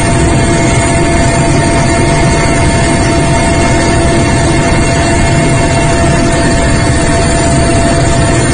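Helicopter engine and rotor noise: a loud, steady drone with a few thin, steady whining tones above it.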